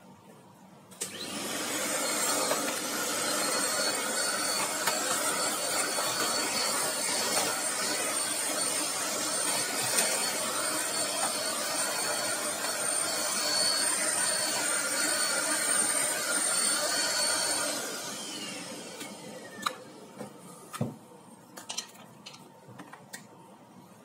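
A handheld vacuum cleaner switches on about a second in and runs steadily with a high whine while its nozzle sucks dust from an electric fan's grille and motor housing. After about sixteen seconds it is switched off and winds down with a falling whine, followed by a few knocks and clicks of handling.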